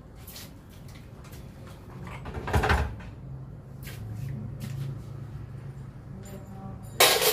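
Knocks and clatter of steel submersible motor parts being handled during disassembly, with a heavy knock about two and a half seconds in and a loud metallic clank near the end that rings briefly.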